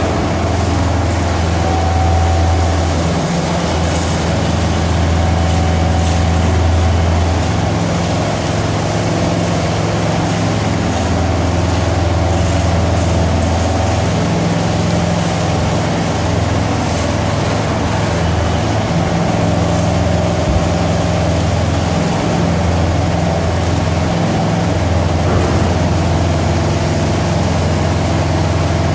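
Heavy engines of concrete-placing machinery (a concrete mixer truck and a ride-on laser screed) running steadily. It is a loud, low drone whose pitch shifts slightly every few seconds.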